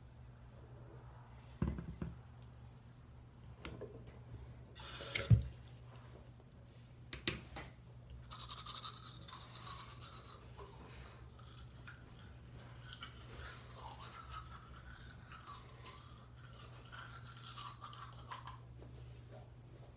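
A few knocks and rustles as a toothpaste tube is taken out of its cardboard box, the loudest about five seconds in; then, from about eight seconds in, a manual toothbrush scrubbing teeth.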